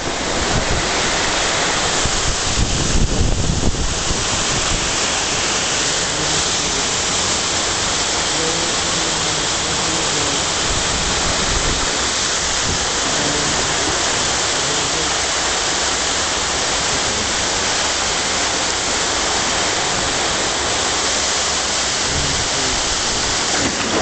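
Water cascading over a concrete waterfall wall and churning through a water-ride rapids channel: a steady, loud rush of falling water. A few bumps of wind on the microphone come about three seconds in.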